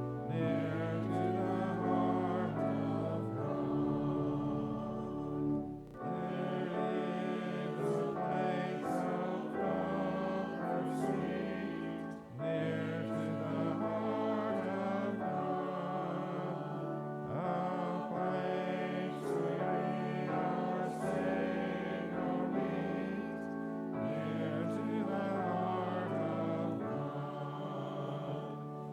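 A congregation singing a hymn in unison and parts, over held accompaniment notes with a steady bass, pausing briefly between phrases.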